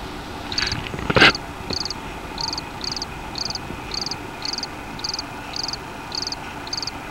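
A cricket chirping steadily about twice a second, each chirp a short high trill of a few quick pulses, over a steady background hiss. There is one sharp knock about a second in.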